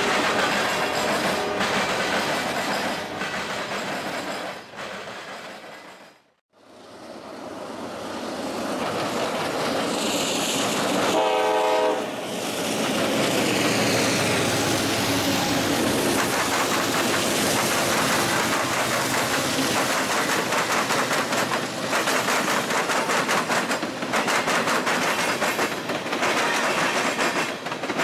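Freight cars rolling past with steady wheel-on-rail clatter. After the sound drops out briefly about six seconds in, a CSX diesel locomotive sounds its horn once, about a second long, and the train rumbles past with rhythmic clickety-clack of wheels over rail joints.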